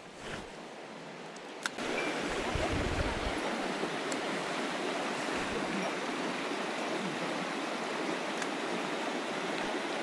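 Shallow mountain stream running, a steady rush of water over stones. It grows louder about two seconds in, right after a short click.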